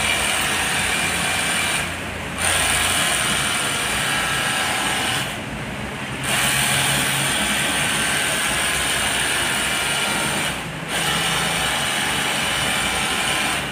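Battery-powered handheld pressure washer spraying water during aircon cleaning: a steady motor whine with a hissing jet. It drops off briefly three times, about two, six and eleven seconds in, as the trigger is eased.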